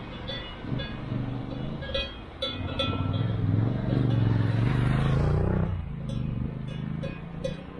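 Off-road 4x4's engine pulling under load on a rough track, growing louder in the middle and easing off toward the end, with scattered light metallic clinks.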